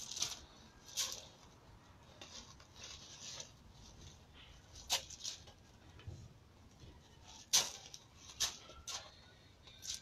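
Hands slapping against hands and arms in play-fighting: about seven sharp smacks at irregular intervals, the loudest about three-quarters of the way through.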